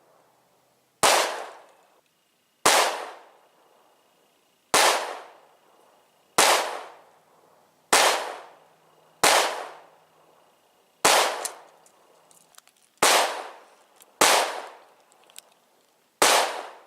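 Ten pistol shots fired one at a time, slow and deliberate, spaced about one and a half to two seconds apart. Each is a sharp crack with a short echoing tail.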